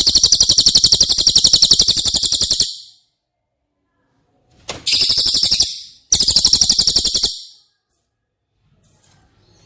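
Cililin (velvet-fronted nuthatch) singing: rapid, high trills of about fifteen notes a second. The first runs until nearly three seconds in, then two shorter trills follow a little after halfway.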